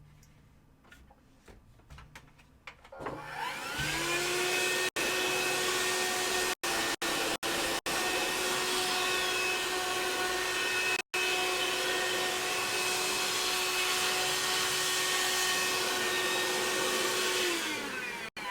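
Lozayi cordless handheld vacuum cleaner switched on about three seconds in: its motor rises in pitch up to speed, runs steadily with a whine over a rush of air, then winds down falling in pitch near the end. The sound cuts out for brief moments several times while it runs.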